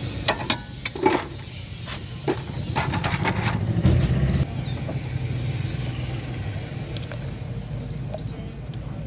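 Metal tools clinking and clanking against car suspension parts, with several sharp knocks in the first few seconds, over a steady low hum that swells briefly near the middle.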